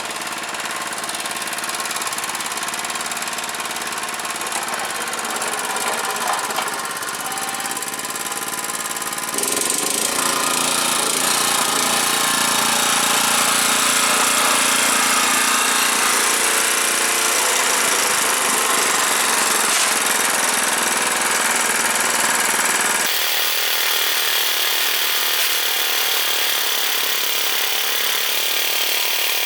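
1987 Honda push lawn mower's small engine running steadily. Its sound changes abruptly about ten seconds in and again about three quarters of the way through.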